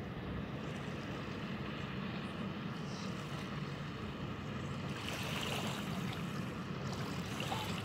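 Steady lakeshore wind on the microphone and small waves lapping, with a Brienzersee passenger ship's engine running faintly in the distance as it comes in to the landing.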